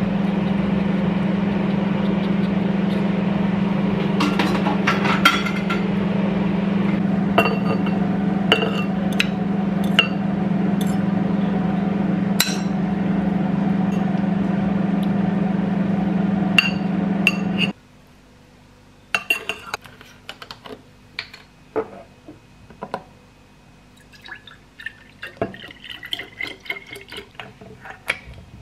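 Beaten egg sizzling as it is poured into hot oil in a nonstick frying pan, over a steady low hum, with occasional clicks and clinks. About two-thirds of the way in the sizzle and hum stop suddenly, leaving a quiet room with scattered clinks of a fork and spoons against a ceramic bowl.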